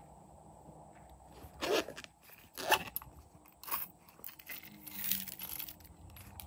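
Plastic cases and packaging being handled over a bowl of slime: three sharp crinkly crackles about a second apart, then a longer rustling stretch.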